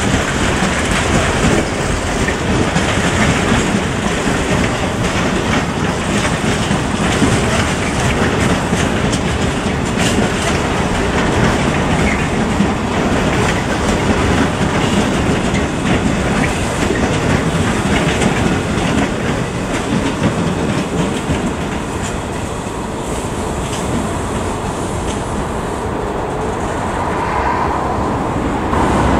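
Intermodal container freight train's flat wagons rolling past, with a steady rumble and the wheels clicking over the rail joints. The noise eases a little late on as the last wagons go by.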